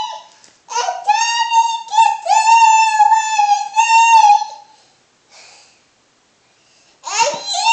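A toddler singing in a very high voice, a run of held notes that scoop up at their starts; she stops about halfway through and starts again near the end.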